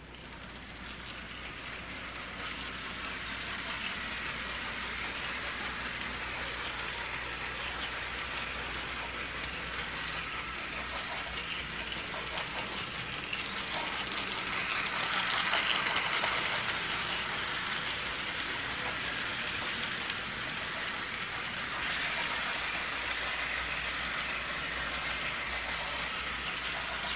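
Bachmann HO-scale model steam locomotive and cars running around an oval of track, a steady rattling whir of the motor and wheels that swells about halfway through as the train passes close by.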